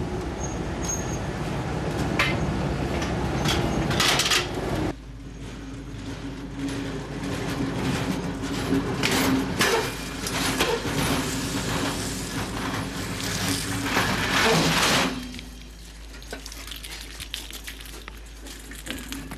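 Freight wagons rolling through a railway shunting yard: a low rumble with clicks, then, after an abrupt change about five seconds in, metallic clanking and clinking over a steady hum, which cuts off about fifteen seconds in.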